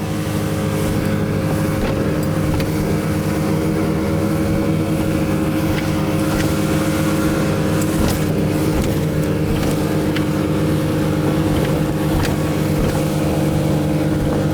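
Twin 40 hp Evinrude two-stroke outboard motors running steadily at speed, the engine note building slightly in the first second and then holding even.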